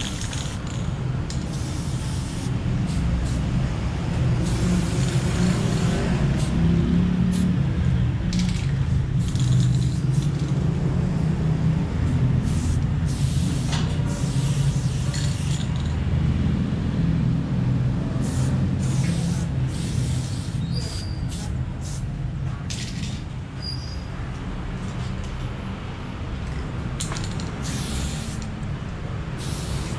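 Aerosol spray paint can hissing in repeated short and long bursts as paint is sprayed, over a steady low rumble.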